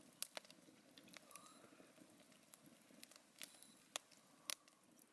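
Faint wood campfire crackling: a few sharp, scattered pops over a low hiss.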